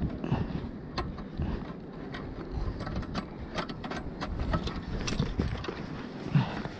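Aluminium ladder clinking and rattling as it is gripped and climbed: an irregular run of sharp metallic clicks and knocks, several a second.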